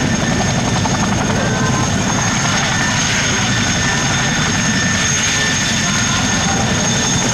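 Airbus A400M Atlas's four turboprop engines running loud and steady during its landing: a deep propeller drone with a steady high turbine whine over it.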